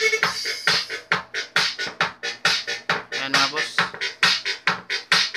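Electronic dance music with a fast, steady beat, played through a Titanium Audio amplifier and Konzert speakers as a sound test, with the volume kept low.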